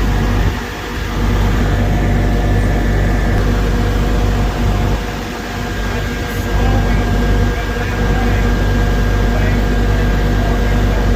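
Diesel truck engine running steadily to power a knuckleboom log loader's hydraulics, with a thin steady whine over the drone; the low rumble dips briefly a few times.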